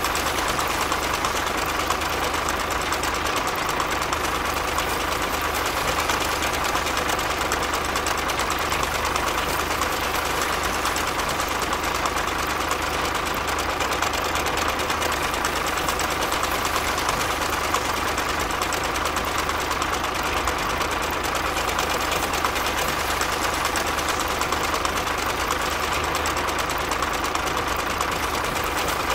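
Miniature model tractor running steadily with a fast, even mechanical chatter that keeps the same pace throughout.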